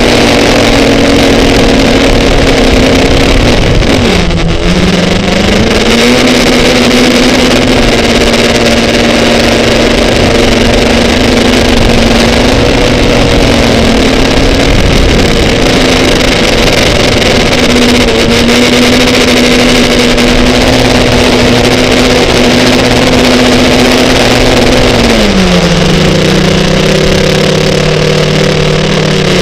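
Snowmobile engine running at a steady cruising speed over a rushing noise. Its pitch dips about four seconds in as the throttle eases off, then climbs back. Near the end it drops to a lower, steady note as the machine slows.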